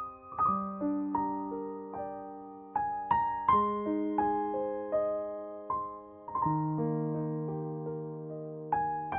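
Background music: slow, soft piano, struck notes and chords each left to ring and fade, a new one about every half second to a second.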